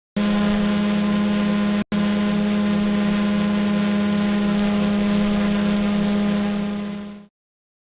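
Mini drone's propellers and motors humming steadily, heard through microphones mounted on the drone itself: one strong low tone with a stack of higher tones above it. It cuts out for a moment about two seconds in and fades away near the end.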